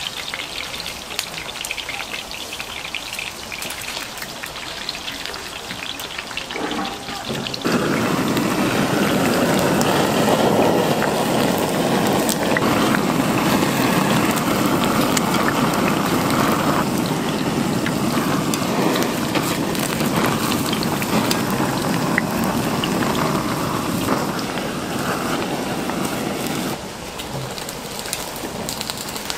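Pork offal sizzling on a hot grill, a steady crackling hiss that gets much louder about eight seconds in and drops back near the end.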